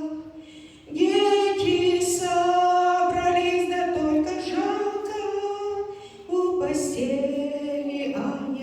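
Choir, mostly women's voices, singing a Russian song in long held notes. There is a break of about a second near the start and a short one about six seconds in.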